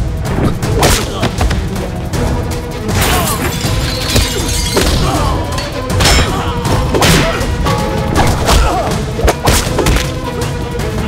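Action-film soundtrack: a dramatic background score over a string of heavy thuds and crashes, about half a dozen sharp impacts spread through it.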